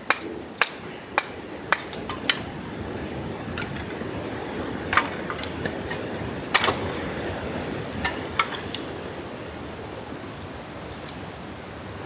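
Hatchet chopping firewood into kindling: a quick run of sharp wooden knocks in the first couple of seconds, then scattered single strikes.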